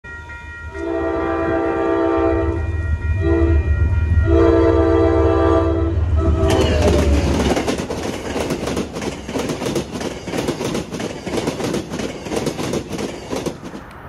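MBTA commuter rail train's horn sounding four blasts, long, short, long, short, as it approaches over a low rumble. The bilevel coaches then pass close by with a loud rumble and rapid clicking of wheels over the rails, which cuts off suddenly near the end.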